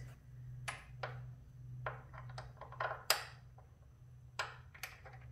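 Irregular clicks and light taps of hardware being handled while a motorcycle LED driving light is fitted to its metal mounting bracket, the sharpest about three seconds in. A steady low hum runs underneath.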